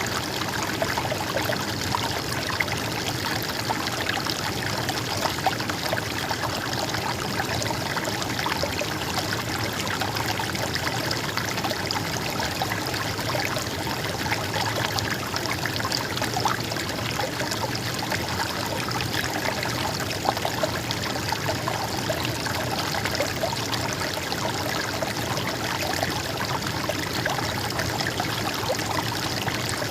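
A stream's water flowing and trickling steadily over rocks, with small splashes.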